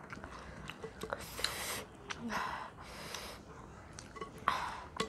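Close-up eating sounds from people eating rice and curry with their hands: small mouth and finger clicks, with several short breathy sniffs, the noses running from the spicy mutton curry.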